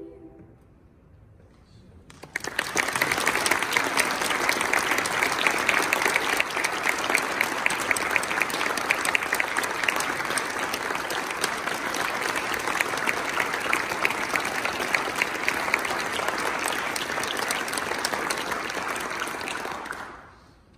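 Audience clapping in sustained applause, starting about two seconds in after a brief hush and dying away near the end.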